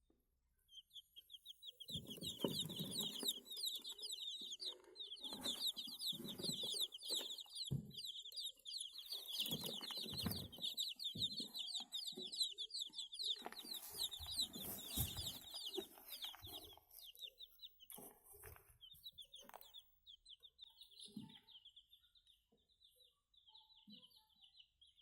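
A flock of day-old kampung chicks peeping continuously in a dense, high chorus. Irregular low thumps and rustling run through the first two-thirds and then fade, leaving mostly peeping.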